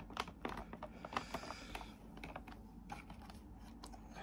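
Irregular small clicks and taps from the metal and plastic parts and wiring of a model car kit being handled while cables are pushed under a clip.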